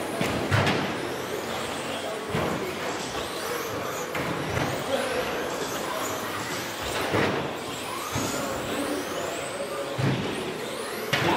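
Several 1/10-scale 2WD RC trucks with 10.5-turn brushless electric motors racing, their motors whining and rising and falling in pitch as they accelerate and brake, over tyre noise, with a few short knocks.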